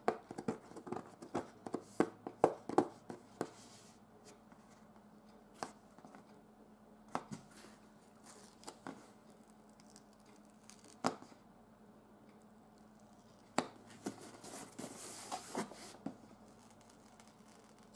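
A package being opened by hand: its packaging rustles and tears, with sharp clicks and knocks. The sounds come thick for the first few seconds, then sparse, with a longer spell of rustling near the end.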